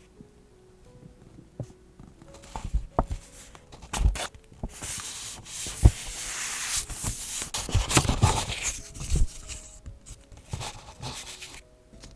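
Paper handled during journaling: light taps and knocks, then about four seconds of rustling, tearing-like paper in the middle.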